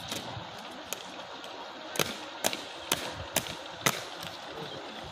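A run of five sharp knocks, about two a second, near the middle, with a couple of lighter clicks just before, over a steady outdoor hiss.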